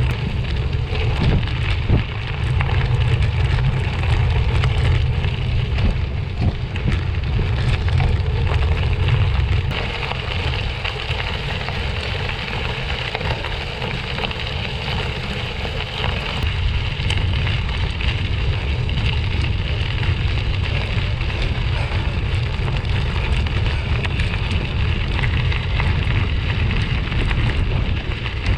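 Bicycle tyres rolling over gravel, a steady crackling hiss, with wind buffeting the microphone as a low rumble that is heavier in the first third and then eases.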